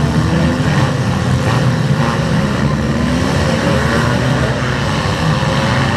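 Demolition derby car engines running loud and revving unevenly, several engine notes rising and falling over one another.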